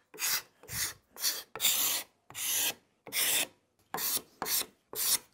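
Steel card scraper drawn in short strokes along the edge of a solid cherry table leg, about nine scrapes roughly two a second, contouring and smoothing the shaped corner.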